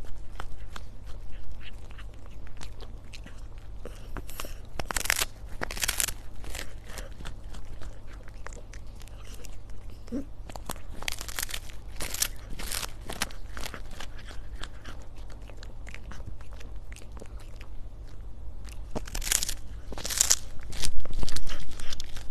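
A cat gnawing and crunching a dried fish: irregular crisp crunches as its teeth break through the dry skin and bones, coming in louder clusters every few seconds.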